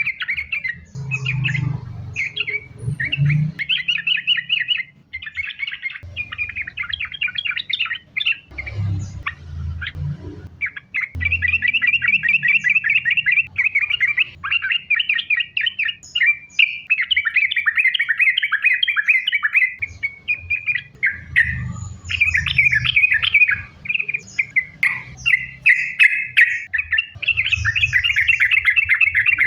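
Yellow-vented bulbul singing its rapid, bubbling chattering song in long continuous runs with brief pauses. A low rumble comes and goes underneath.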